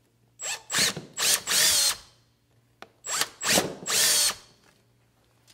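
Milwaukee M18 cordless drill boring out stripped screw holes in a vinyl window sash: the motor runs in two groups of three short bursts as the trigger is pulled, one group near the start and one about halfway through, with the bit cutting into the vinyl.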